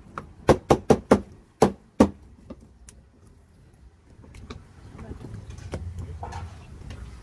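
A heavy knife knocks sharply against a wooden chopping block about six times in the first two seconds while tuna is being cut. From about five seconds in, the low, steady hum of a vehicle engine comes in.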